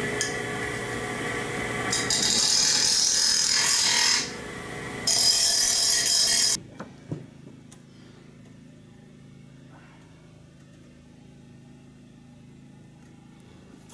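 Metal-cutting chop saw running and cutting aluminum tubing, with two loud cuts of about two seconds and one and a half seconds. It stops suddenly about halfway through, and a faint low hum follows.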